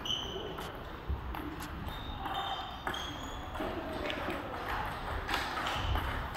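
Table tennis multiball practice: plastic balls knocking off rubber paddles and bouncing on the table, a sharp click every second or so at an uneven rhythm.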